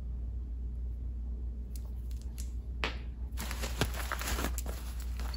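Scissors cutting into foam and plastic packing wrap, with a few light clicks and then rustling and crinkling of the wrap from about three and a half seconds in.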